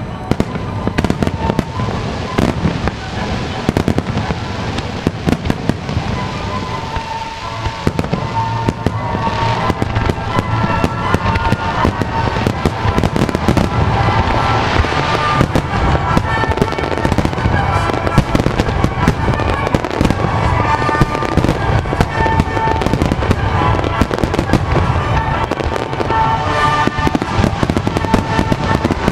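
Fireworks bursting in rapid, continuous succession, many sharp bangs over music played through loudspeakers, as a melody fireworks display synchronised to the music.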